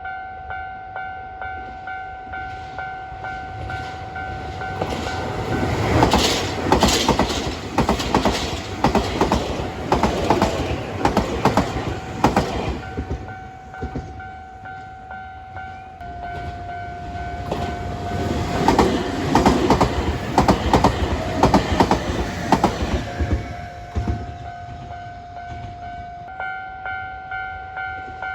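Japanese level-crossing warning bell ringing in a steady repeating electronic ding while two Nankai Main Line trains pass one after the other, their wheels clattering rhythmically over the rail joints at the crossing. The wheel clatter is the loudest sound, the first pass coming about five seconds in and the second a few seconds after it.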